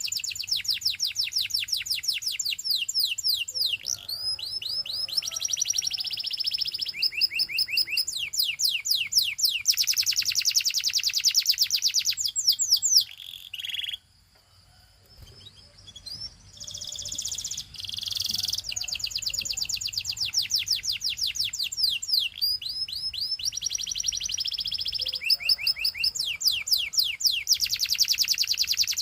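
Canary singing: long runs of rapid, high-pitched repeated notes in trills that change speed and pitch from phrase to phrase. The song breaks off for about two seconds halfway through, then resumes.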